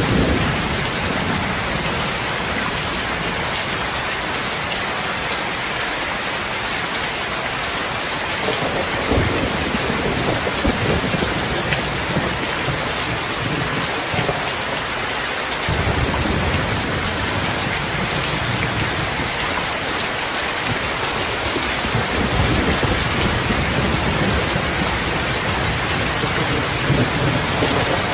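Heavy rain falling steadily, with low rolls of thunder that swell and fade several times.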